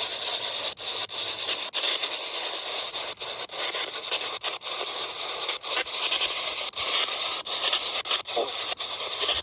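Spirit box (a radio scanning rapidly through stations) sweeping: a steady hiss of static broken by clicks a few times a second as it jumps station to station, with a short snatch of a radio voice near the end.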